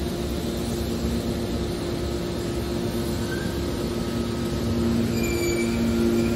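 Hydraulic iron scrap baler running: a steady mechanical hum with two held low tones that grows a little louder about five seconds in, with a few brief faint squeals higher up.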